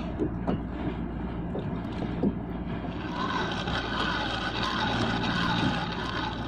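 Spinning fishing reel being cranked to retrieve line, a wavering whir that starts about halfway through and rises and falls with the cranking. It sits over a steady low hum and a few soft knocks against the kayak.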